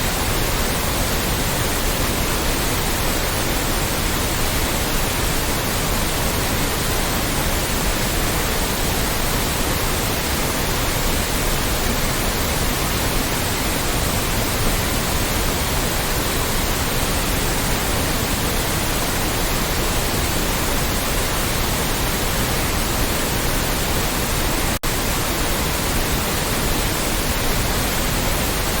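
Loud, steady white noise: an even hiss spread across all pitches, with a momentary dropout a few seconds before the end.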